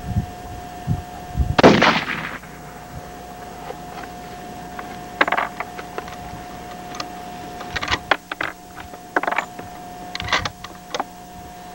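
A single shot from an Armalite AR-30 bolt-action rifle in .300 Winchester Magnum, about a second and a half in, with a short echoing tail. Over the following seconds come several groups of sharp metallic clicks as the bolt is worked.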